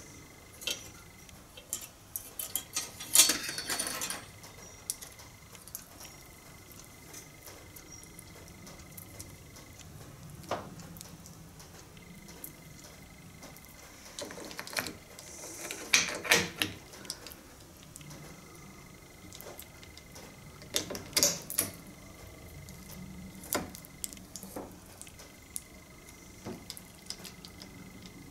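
Metal clicks, scrapes and rattles of hedge trimmer blade bars, gearbox parts and hand tools being handled and fitted, with louder bursts of clattering about three, sixteen and twenty-one seconds in.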